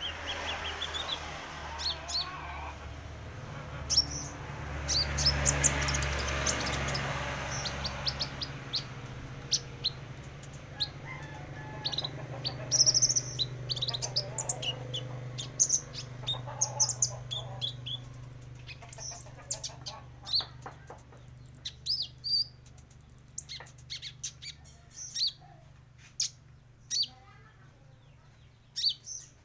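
Young purple-throated sunbird (kolibri ninja) in juvenile plumage practising its song: rapid, scattered high chirps and short trills, irregular and unfinished, the stage of a bird still learning its song. A low hum runs underneath, and a rumble swells and fades in the first third.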